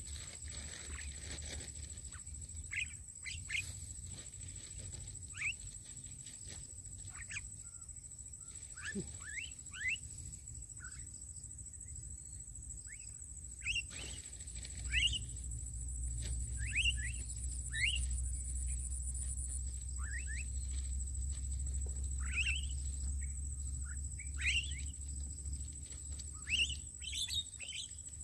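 Birds chirping: many short, quick downward-sweeping calls at irregular intervals, more frequent in the second half, over a low rumble and a steady high-pitched whine.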